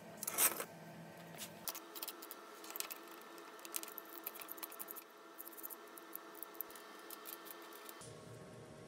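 Small metal parts clicking and clinking on a steel welding table as wing nuts are set down one by one, with a short noisy burst about half a second in.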